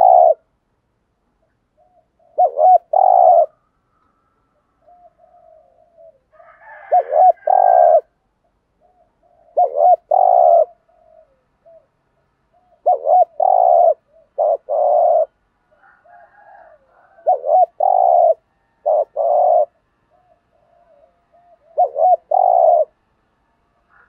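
Spotted dove giving its fast 'thúc gù' bowing coo: short phrases of two or three deep coos every two to four seconds, with soft quieter coos between them.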